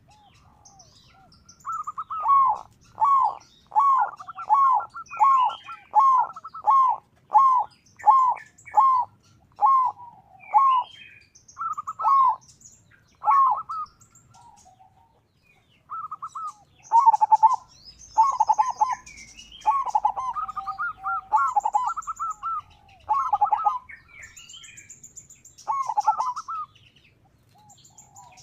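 Zebra dove (perkutut) singing: a long run of short, evenly spaced coos, about one and a half a second, then slower, more scattered coos in the second half. Fainter high chirps of small birds sound above it.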